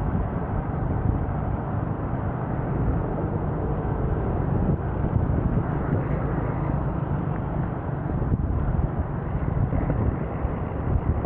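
Steady wind rumble and rush on the microphone while riding, with road noise, no distinct events.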